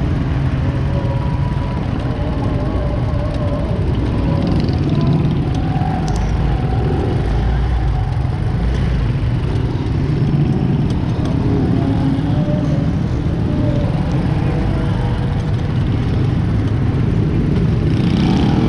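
Busy road traffic: cars and motorcycles running close by, a steady, dense engine rumble.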